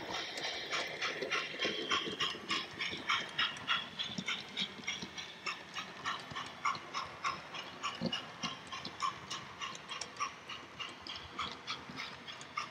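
Model steam locomotive and coaches running on a model railway track, giving a regular clicking about four times a second over a faint steady running noise; the clicks slowly grow fainter as the train moves away.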